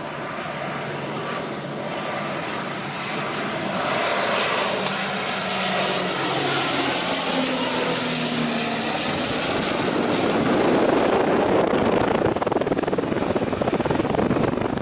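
CASA C-295 twin-turboprop's engines and propellers growing steadily louder as it comes in low overhead on landing approach. The pitch drops as it passes about halfway through, and the sound turns into a loud rushing noise as it moves off toward the runway.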